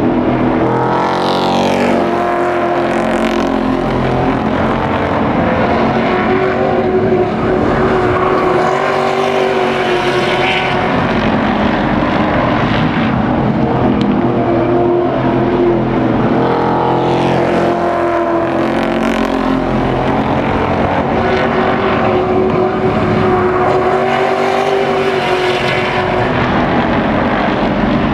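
Race trucks' engines running hard as the field circles a short asphalt oval. The engine note rises as the pack accelerates past, about a second in and again about halfway through.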